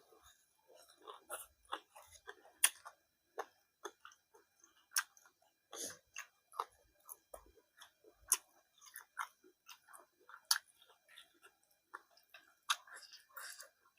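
A person chewing food with mouth open to the ear: irregular wet clicks and small crunches, several a second, with no steady rhythm.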